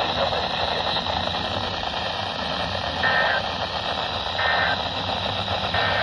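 Hiss and static of a weak NOAA Weather Radio signal from a RadioShack 12-254 weather radio's speaker. About three seconds in come three short two-tone data bursts, roughly 1.4 s apart: the SAME end-of-message bursts that close the severe thunderstorm warning.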